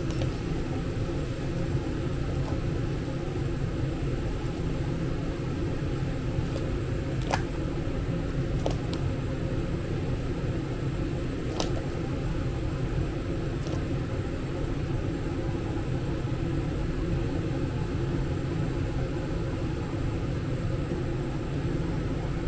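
Large stainless-steel stockpot of water at a rolling boil, a steady rumbling bubble with a low hum beneath, as dumplings are dropped in. A few light sharp clicks come through in the middle.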